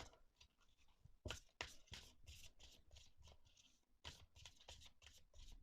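Faint, irregular soft swishes and light clicks of a deck of smooth-cardstock oracle cards being shuffled by hand.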